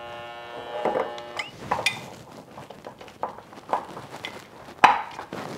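A held musical note for about the first second and a half. Then scattered clicks and knocks of glass mason jars and their lids being handled on a stone countertop, with one sharper knock near the end.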